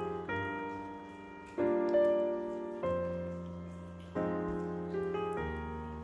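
Piano music: chords struck about every second and a quarter, each dying away before the next.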